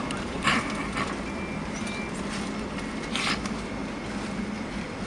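Steady cabin noise inside a Boeing 757-200 taxiing after landing: engines at idle and air rush. Two brief noise bursts stand out, about half a second in and about three seconds in.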